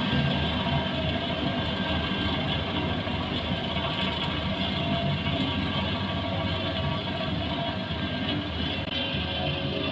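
Heavy road-construction machinery running steadily, a continuous engine and mechanical rumble.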